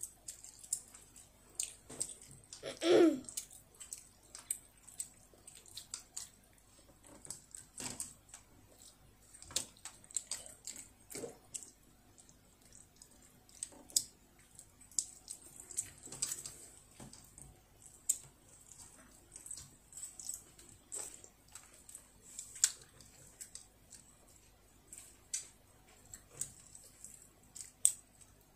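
A child eating rice with chopsticks: light clicks of wooden chopsticks against a ceramic bowl and wet chewing and mouth sounds, scattered irregularly. A brief vocal sound about three seconds in.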